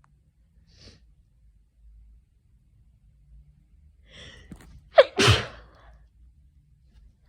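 A person sneezing with a head cold: a gasping in-breath about four seconds in, then one loud sneeze whose "choo" falls sharply in pitch.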